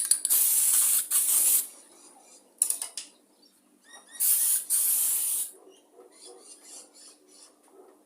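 Primer being sprayed onto a mower deck: two long hissing spray bursts of about a second and a half each, with a short burst between them and light clicks in the pauses.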